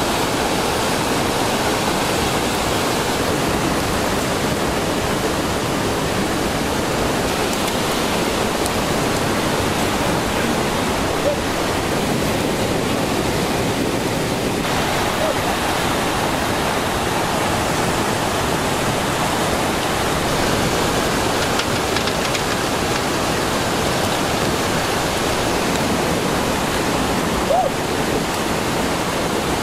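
Steady, loud rushing of a swollen, muddy stream pouring through rocky rapids close by. A brief knock near the end.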